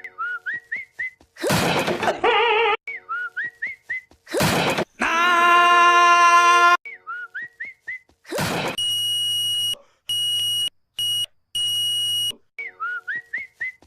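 Edited cartoon audio: a short whistled tune is cut off again and again by a loud crash of a chair hit. Each crash is followed by a different added sound: first a wavering tone, then a long held buzzy tone, then steady beeping that cuts in and out several times.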